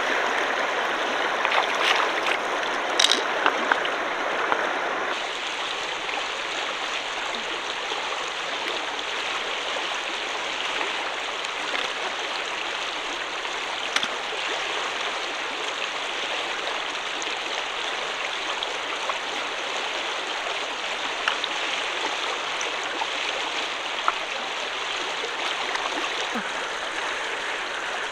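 Steady rush of shallow flowing water, with a few sharp clicks and taps in the first few seconds and another about halfway through.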